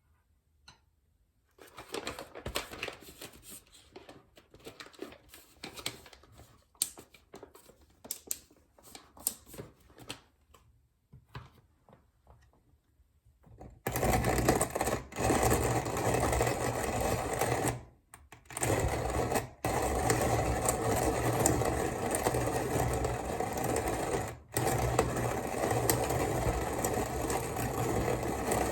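Kalita hand coffee grinder: scattered light clicks and rattles at first, then, about halfway in, steady crank-turning with the beans crunching as they are ground, paused briefly two or three times.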